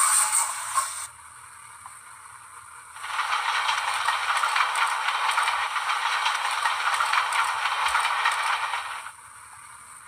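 Recorded railway sound effect played through the small speaker of a model locomotive's DCC sound decoder. A rough, rattling, hissing noise starts about three seconds in and stops about a second before the end.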